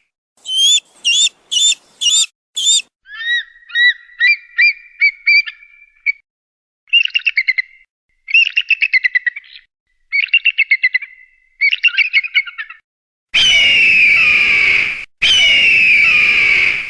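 A sequence of eagle calls: about five short, high slurred whistles, then a run of quick chirps, several chattering trills, and near the end two long harsh screams.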